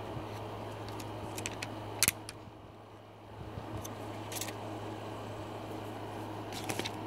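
Handling noise from a phone held close: scattered clicks and taps, the loudest a sharp double click about two seconds in, over a steady low hum.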